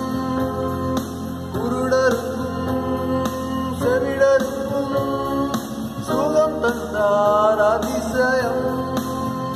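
A man singing a Tamil Christian worship song over steady instrumental backing with guitar-like accompaniment.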